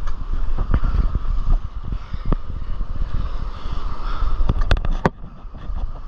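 Wind buffeting an action camera's microphone over shallow surf, with foamy wave wash and water splashing on the camera, and a few sharp knocks near the end.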